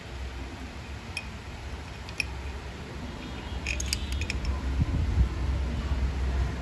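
Light metallic clicks and clinks of engine parts being handled as a motorcycle cylinder block is worked down over the oiled piston and rings. There is a cluster of clinks about four seconds in and a couple of dull knocks just after, over a low steady rumble.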